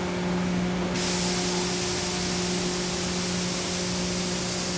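Injection molding press running on a dry cycle with a steady machine hum. About a second in, a loud, steady hiss joins it.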